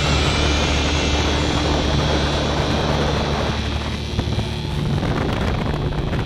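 Boat's outboard motor running steadily, with wind blowing on the microphone; the wind noise eases a little about four seconds in.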